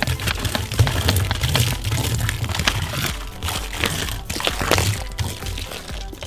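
Fizzy soft drink pouring in a stream into a metal barrel and splashing onto foam, with crackling and fizzing, over background music.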